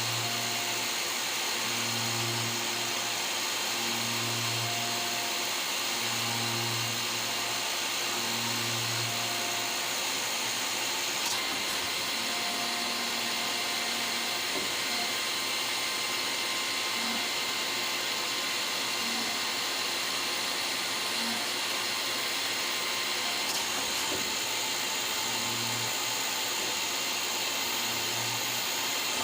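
Citizen M32 CNC Swiss-type lathe running, a steady machine whir with a high hiss. A low hum swells and fades about every two seconds for the first ten seconds and again near the end, with a couple of faint ticks in between.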